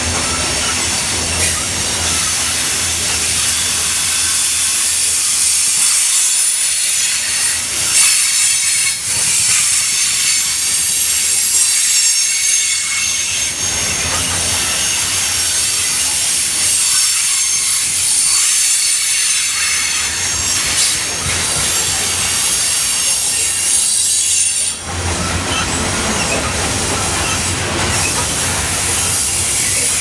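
Loaded coal hopper cars of a long freight train rolling past: a steady rumble and clatter of steel wheels on rail, with a high-pitched wheel squeal held over it.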